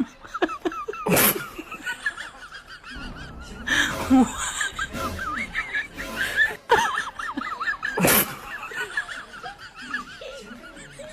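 People laughing throughout, with several short, sharp bursts of noise cutting in.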